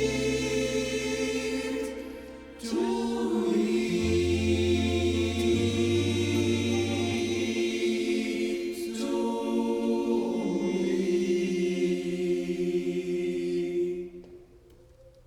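Choir singing long held chords, with brief breaks between phrases about two and a half and nine seconds in; the last chord ends about fourteen seconds in and dies away.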